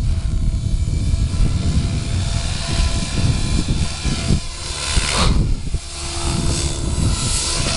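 Gaui X7 electric RC helicopter flying pitch pumps: the main rotor blades whoosh as the collective swings full up and down over a steady motor whine, with a strong rushing swell about five seconds in. Wind buffets the microphone with a heavy low rumble.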